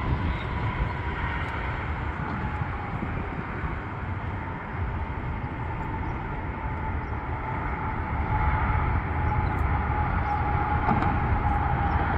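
Steady road traffic noise from cars crossing the bridge and its highway approach, with a faint steady whine running through it; the traffic grows somewhat louder about eight seconds in.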